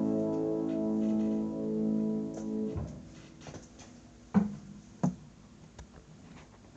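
Final piano chord ringing out, then damped off abruptly about three seconds in. It is followed by soft rustling and two short thumps as the player gets up from the piano.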